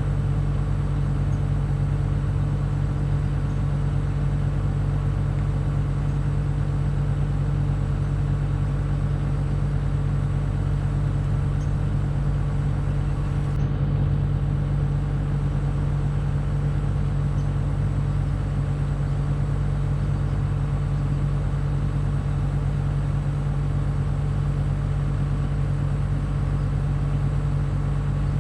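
An engine running steadily at an even speed, with no revving or change in pitch.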